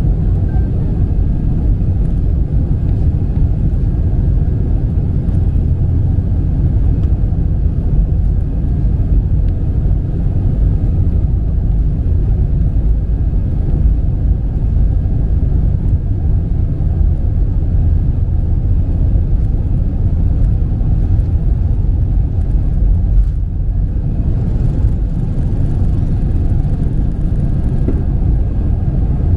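Airbus A320 cabin noise heard inside the cabin: a steady, even, deep rumble of the jet engines and airflow, with no rise or fall.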